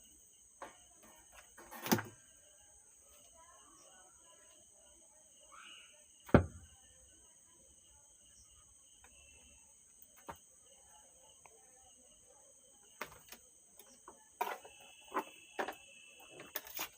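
Scattered clicks and knocks from parts and tools being handled at an amplifier repair bench as the volume control's wiring is taken off. The loudest is a sharp knock about six seconds in, and a cluster of clicks comes near the end. A faint, steady high insect chirring runs underneath.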